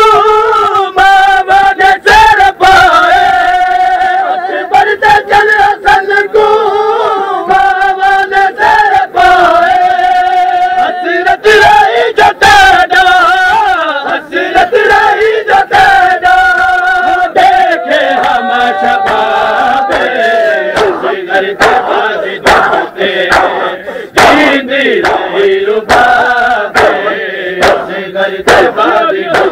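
A crowd of men chanting a Muharram mourning lament together in long, wavering lines, punctuated by repeated sharp slaps of hands striking bare chests (matam).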